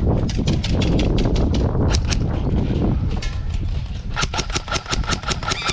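Airsoft guns firing: a steady run of sharp shots, about five a second, over a low rumble. About four seconds in, a faster burst starts with a steady whine, typical of an electric airsoft gun's gearbox firing on full auto.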